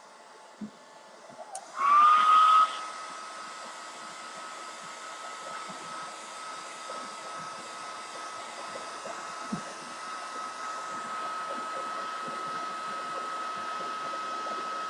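Handheld heat tool switched on with a click about a second and a half in. Its fan whine rises quickly to a steady high pitch over a blowing hiss, loudest for about a second and then steady and quieter, as it dries chalk ink on a terry cloth bib.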